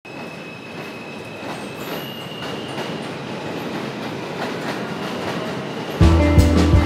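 Subway train running on the tracks, its rumble and rail clatter growing steadily louder, with a faint high wheel squeal that fades out about three seconds in. Loud band music with drums and bass cuts in suddenly about six seconds in.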